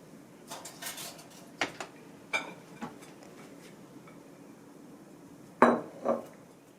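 Dishes and cutlery clinking and knocking against each other: a few light clinks, then two louder knocks near the end.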